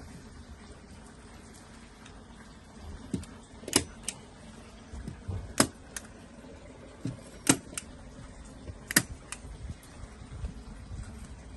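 Sharp clacks of a hand staple gun fixing pond liner to timber sleepers, about seven in all, several in quick pairs, starting about a third of the way in.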